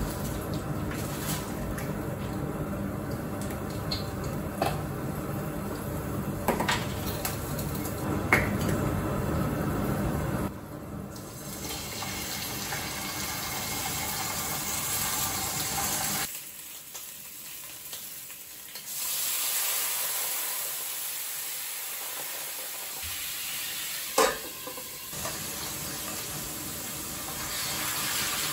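Frying pan sizzling with garlic and rosemary in hot oil, then lamb chops searing in it, with scattered clicks of chopsticks and utensils on the pan and a sharp knock about 24 seconds in.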